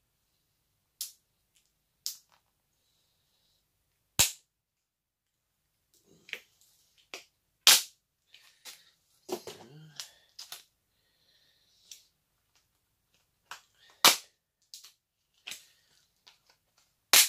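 Thin plastic cup cracking and snapping as it is squeezed and twisted to work a tightly stuck, cured silicone mould block free: sharp, irregular cracks, a few loud, with short pauses between.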